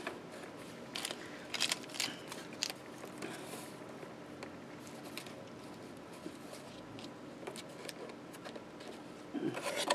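Faint handling sounds of laser-cut MDF kit pieces being pushed into place by hand: scattered light clicks and ticks, with a brief soft rustle a few seconds in.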